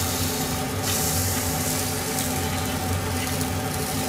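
Salted mackerel sizzling and crackling under the grill of an IH cooktop's fish-grill drawer, the hiss swelling for about a second starting about a second in, over a steady low hum.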